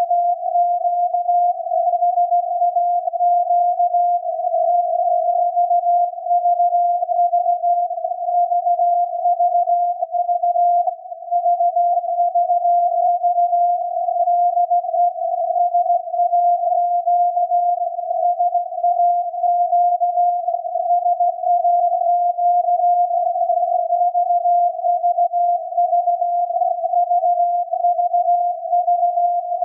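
The VLF signal from the SAQ Grimeton transmitter on 17.2 kHz, received by radio and heard as a steady tone near 700 Hz. The tone is unbroken and wavers slightly in pitch, inside a narrow band of radio hiss, with a brief drop in level about eleven seconds in.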